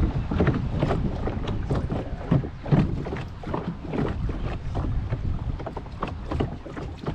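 Wind rumbling on the microphone, with frequent irregular slaps of choppy water against a fishing boat's hull.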